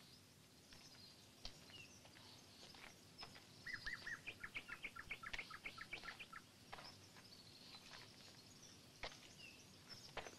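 Faint outdoor birdsong: scattered high chirps from small birds, with a quick run of repeated chirps from about three and a half to six and a half seconds in, and a few faint clicks.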